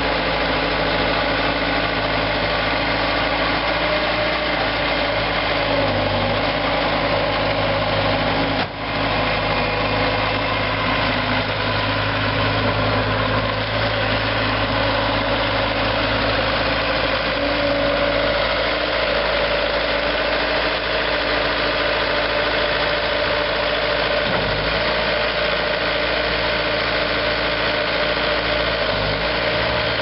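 The Kubota V2403 four-cylinder diesel engine of a Bobcat T190 Turbo compact track loader runs steadily while the machine drives and maneuvers. There is a brief drop in level about nine seconds in.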